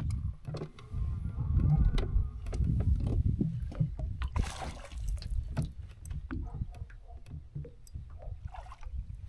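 Low, rough rumble of water and wind against a bass boat, with scattered knocks and clicks from a spinning rod and reel being worked, and a brief hiss about four and a half seconds in.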